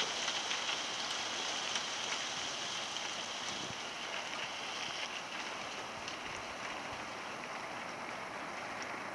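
Small hail falling on a concrete patio: a steady, dense hiss made of many tiny ticks, growing slightly fainter toward the end.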